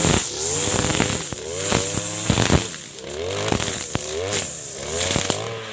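Backpack brush cutter with nylon trimmer line, its engine revving up and down about once a second as the spinning line cuts grass and brush, with sharp ticks as the line strikes stems.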